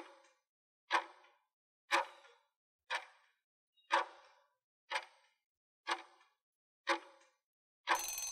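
Countdown-timer sound effect, a clock tick once a second. Near the end the ticks give way to a short ringing sound as the time runs out.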